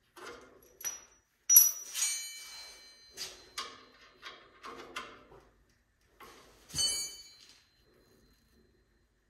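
Wrench and bolts clinking and knocking against steel as the wishbone housing locator is bolted in. There are a dozen or so separate clinks, several of them ringing briefly; the loudest is about a second and a half in, with another strong one about seven seconds in.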